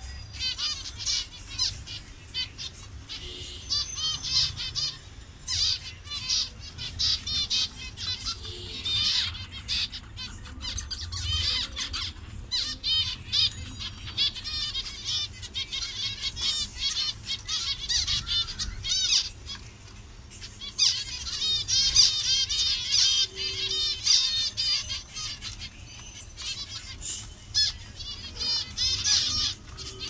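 A flock of zebra finches calling continuously: many short, nasal, overlapping calls from several birds at once, busiest in the second half.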